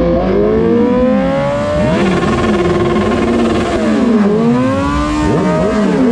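Several motorcycle engines revving up and down at once, their pitches rising and falling and crossing over one another.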